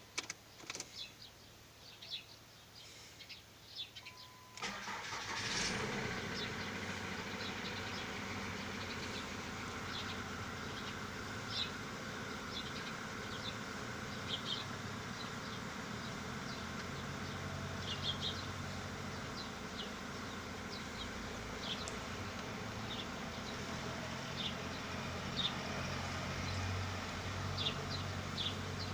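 Ford Mondeo Mk3 TDCi four-cylinder common-rail diesel engine starting about four and a half seconds in, then running steadily at idle. This is the engine whose strange sound the owner asks about, on a car that has no power below 2000 rpm and makes black smoke. Birds chirp throughout.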